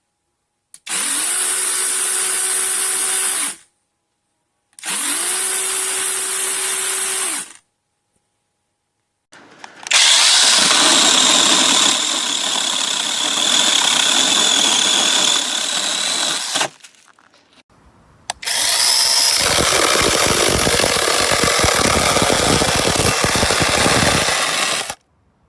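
Small cordless 6-inch 21V electric chainsaw. It runs free twice in short bursts of about three seconds, each time spinning up to a steady whine and then stopping. Then come two longer runs of about seven seconds each with a rougher, noisier sound, the chain cutting wood.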